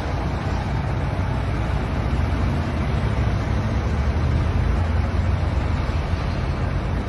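Steady low rumble of a stopped diesel semi truck idling close by, with traffic noise.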